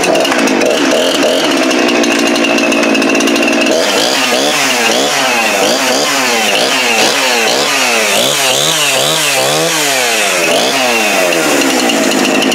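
Husqvarna two-stroke chainsaw catching and running, held steady for a few seconds, then revved up and down over and over, about one and a half times a second, before settling again near the end. It is running after a makeshift repair with a pipe clamp, tape and a piece of rubber boot, and it seems to be working as it should.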